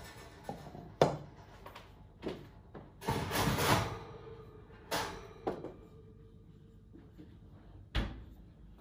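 A metal bundt cake tin set down on the kitchen counter and the oven being handled: a sharp knock about a second in, a scraping clatter of about a second around the middle, smaller knocks between, and a dull thump near the end.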